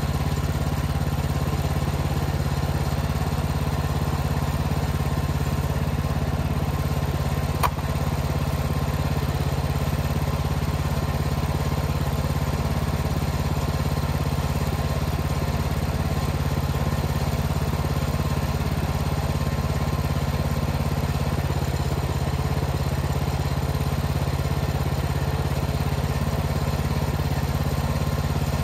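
Small gasoline engine of a Woodland Mills HM-126 portable band sawmill running steadily at an even pitch, with a single sharp knock about eight seconds in.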